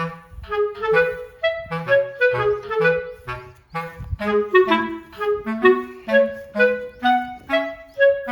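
Background music: a light instrumental tune of short, quick notes over a bass line, a woodwind-like lead carrying the melody.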